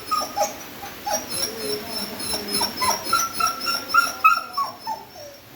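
A beagle whining and yipping in a quick run of short, high-pitched calls.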